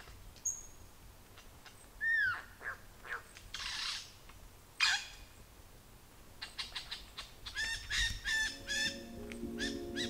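Rainforest birds calling: a high thin whistle, curving and sharply sweeping notes, then a fast run of repeated chattering notes near the end. Steady low music tones come in near the end.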